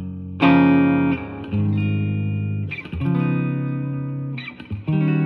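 Electric guitar, a Stratocaster with three single-coil pickups, played through a Yamaha THR10C modeling amp on its Deluxe amp model. Chords are struck and left to ring, a new chord roughly every one to one and a half seconds.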